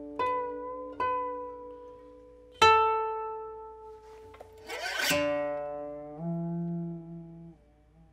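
Koto played solo: single plucked notes ring out and fade, a few a second apart, the loudest about three seconds in. Around five seconds in comes a brief scraping noise, then a held note whose pitch drops near the end.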